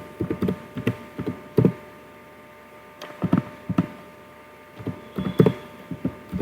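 Computer keyboard being typed on in short, irregular runs of taps, over a steady electrical hum.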